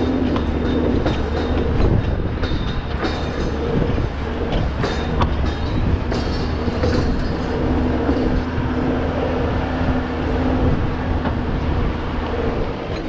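The old wheel loader's Cummins diesel engine runs steadily as the machine creeps forward straining fence wire, with frequent clanks and rattles from the machine over the engine note.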